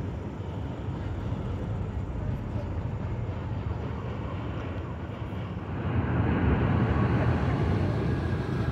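Wind buffeting the microphone: a steady low rumble that grows louder from about six seconds in.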